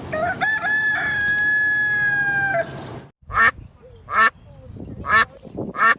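A rooster crowing once: a single long held call of about two and a half seconds that dips in pitch at the end. From about three seconds in, a duck quacking, four short quacks less than a second apart.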